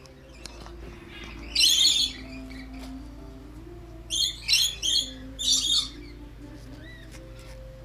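A red lory screeching at close range: one harsh screech about a second and a half in, then four more in quick succession a couple of seconds later.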